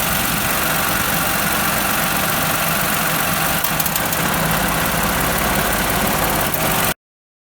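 Car engine idling, which the mechanic puts down to abnormally high air-conditioning refrigerant pressure, likely from air in the system. The sound stops abruptly about seven seconds in.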